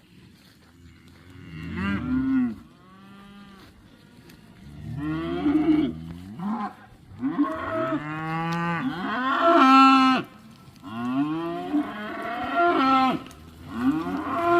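A herd of cattle mooing, call after call from several animals, often overlapping.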